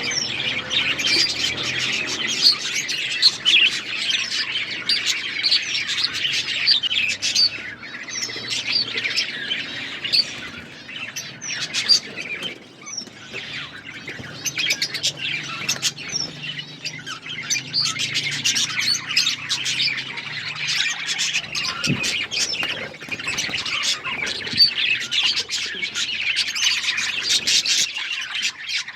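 Budgerigars chirping, many short high calls overlapping continuously, thinning briefly about halfway through.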